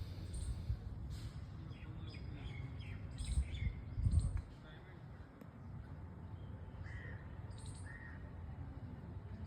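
Small birds chirping, with short, high repeated chirps and a few lower calls near the end. A low rumble underneath swells briefly about four seconds in.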